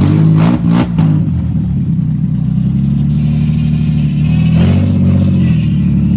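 Nissan 350Z's V6 engine idling steadily.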